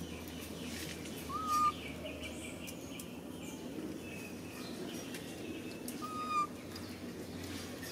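A bird calling twice, about five seconds apart: each call is a short, clear note that rises and then holds. Fainter high chirps come in between, over a steady low background hum.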